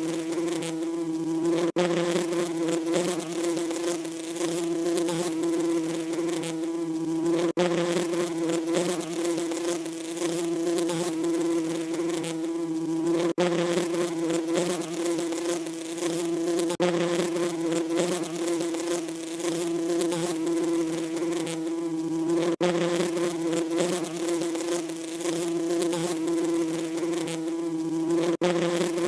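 Bees buzzing in a steady, continuous drone, broken by a brief dip about every six seconds.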